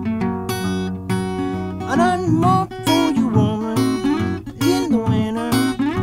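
Acoustic blues guitar playing an instrumental passage: plucked notes over a steady bass line, with notes bending up and down from about two seconds in.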